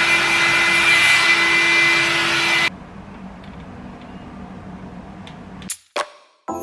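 Hair dryer blowing with a steady whine, cut off suddenly about two and a half seconds in. A faint low hum follows, then a couple of clicks near the end.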